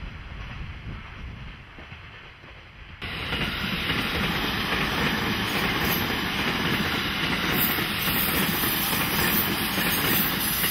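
Wind rumbling on the microphone, then an electric express train passing close by. About three seconds in, a loud, steady rush of wheels running on rail starts suddenly and cuts off abruptly near the end.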